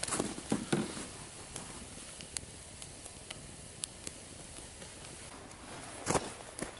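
Burrito frying in a cast-iron skillet over a wood campfire: a faint steady sizzle with scattered sharp crackles and pops from the fire. Near the end come a couple of louder scuffing sounds.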